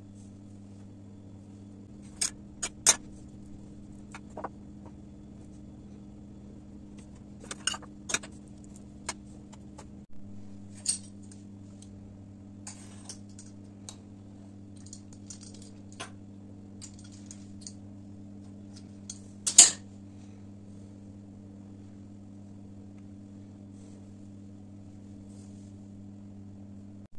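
Light clicks and clatter of kitchen utensils handled on a countertop, with short scraping patches as a pizza cutter wheel runs through rolled dough, over a steady low hum. The sharpest click comes about twenty seconds in.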